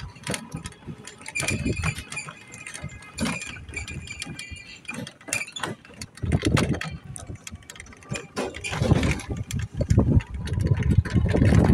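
Motorcycle running along a road, heard mostly as uneven gusts of wind buffeting the microphone, growing louder near the end.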